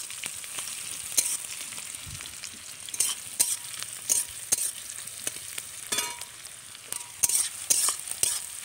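Sliced onions sizzling in hot oil in a metal kadai, being fried until reddish-brown, while a metal spatula stirs them, scraping and clinking against the pan every second or so, with a brief metallic ring about six seconds in.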